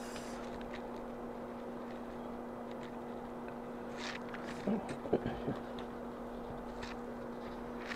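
Steady low electrical-sounding hum, with faint soft taps and rustles of paper sticker sheets being handled and set down on a table, a few of them clustered around the middle.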